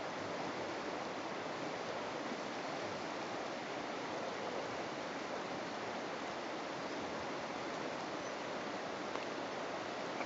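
River water flowing past, a steady, even rush of noise.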